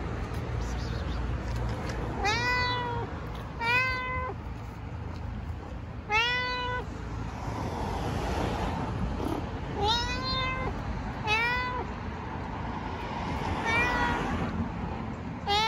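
Long-haired dilute tortoiseshell cat meowing repeatedly, about seven short meows a second or several apart, each rising and then falling in pitch. A brief rustling noise comes between the meows around the middle and again near the end.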